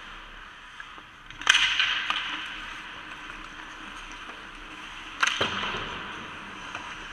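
Ice hockey play on the rink: skates scraping under a steady rink hum, with two sharp cracks of stick and puck. The first comes about a second and a half in, the second about five seconds in with a deeper thud.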